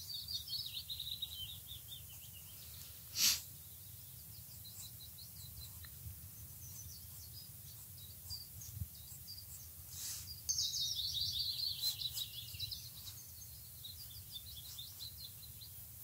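A songbird singing: a descending trilled phrase at the start and again about ten and a half seconds in, with scattered high chirps between, over a low steady outdoor rumble. A brief puff of noise about three seconds in.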